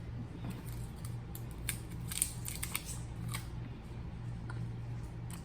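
Fruittella chewy candy being eaten: scattered short wet clicks and smacks from the mouth, over a steady low hum.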